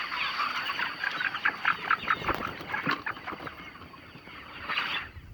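A flock of chickens calling at once, many short overlapping clucks and cheeps, thinning out somewhat after about three seconds, over a thin steady high-pitched tone.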